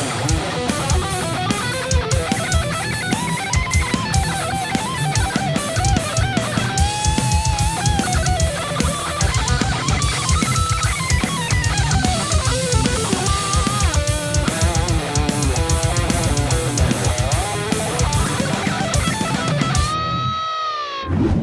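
Jackson Dinky DX10D electric guitar playing a heavy metal instrumental over a drum kit, the lead line bending and wavering in pitch. Near the end a last held note falls in pitch, then the music cuts off.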